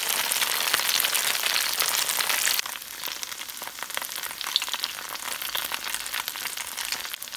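Battered elderflower head deep-frying in hot oil in a wok: a dense crackling sizzle of many tiny pops. It is louder for about the first two and a half seconds, then settles to a quieter, steady sizzle.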